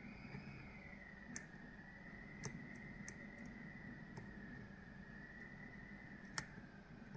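Lock-picking tools clicking against the pins of a Kale Kilit 164 BNE cylinder lock: a few faint, irregular clicks, the sharpest about six seconds in. A faint high tone that wavers slightly in pitch sits underneath.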